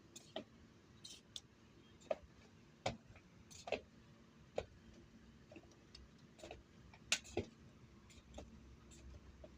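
Light clicks and taps at uneven intervals, about fifteen of them, the sharpest about two, three and seven seconds in.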